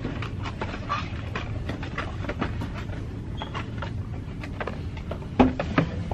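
Handling noise on a handheld camera: a steady low rumble with many small clicks and knocks, and a louder knock near the end.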